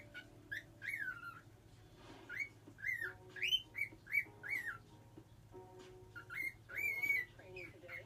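Cockatiel whistling, practising a tune it is still learning: short whistled notes that slide up and down, in three bursts with pauses between.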